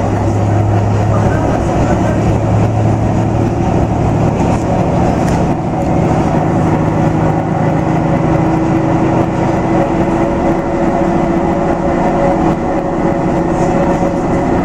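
HSOR-100 single-car diesel railcar running under power as it picks up speed, its engine note steady with a pitch that rises partway through, over continuous wheel and rail noise.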